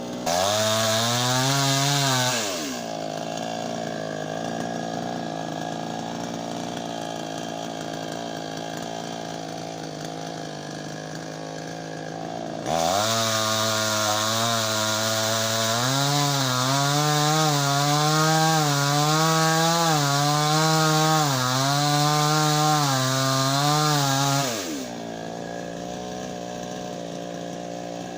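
Two-stroke chainsaw idling, with a brief rev at the start. About halfway through it is held at high revs for roughly twelve seconds, the engine speed wavering up and down about once a second, then it drops back to idle.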